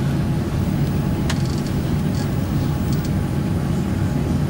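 Steady low rumble of an airliner cabin in flight. A few faint clicks come in the middle.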